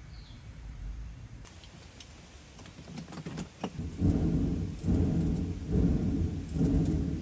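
A hand-worked clay-pot blower pumping air into a clay iron-smelting furnace: rhythmic whooshing pulses about once a second, starting about four seconds in after a few light knocks.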